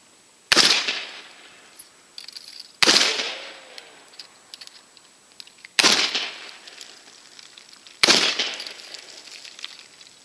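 Four black-powder shots from Pattern 1853 Enfield rifle-muskets firing one at a time at uneven intervals, two to three seconds apart. Each shot is a sharp crack with a tail that dies away over about a second, with faint clicks between the shots.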